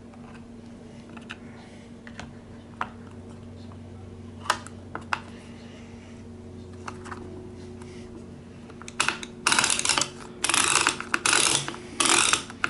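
Scattered plastic clicks and taps as a chainsaw's side cover is seated over the bar and chain. From about nine seconds in come loud, repeated ratcheting bursts as the cover's wing-nut knob is turned down by hand.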